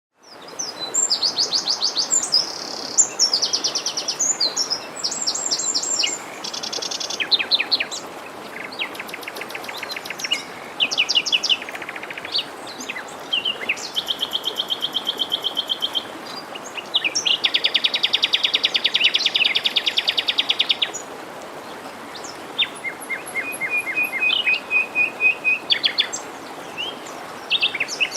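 Songbirds singing one after another in fast trills and runs of repeated high chirps, over the steady rush of a forest stream.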